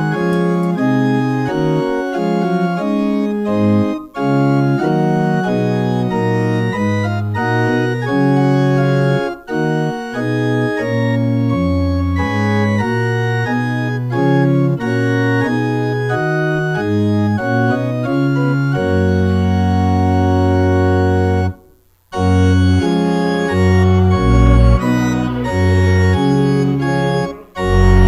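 Church organ playing the opening hymn, sustained chords moving note by note. A long held chord ends in a brief pause about three-quarters of the way through, then the organ starts again.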